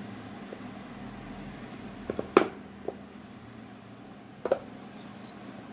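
Cardboard iPhone XR box being handled as its lid is worked off. A few sharp knocks and taps of the box come a little over two seconds in, the loudest of them there, then another pair about four and a half seconds in, over a steady low hum.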